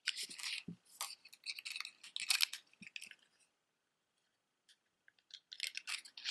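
Costume-jewelry earrings clicking and clinking as they are handled and set down: a run of small, light clicks, then a pause of about two seconds before more clicks near the end.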